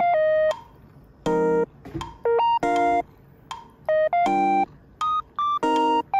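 Background music: short, bouncy notes in a stop-start melody, each note lasting about a third of a second with brief gaps between.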